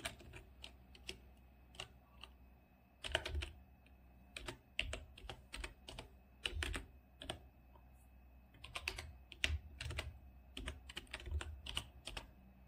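Computer keyboard being typed on: irregular key clicks, several quick runs of keystrokes with short pauses between them, as an email address is keyed in.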